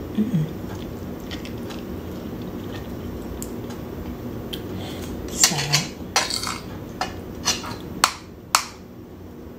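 A spoon and fork clinking and scraping against a dinner plate as rice is scooped up: a run of about eight sharp clinks over the last four seconds. Beneath it is a steady low room hum.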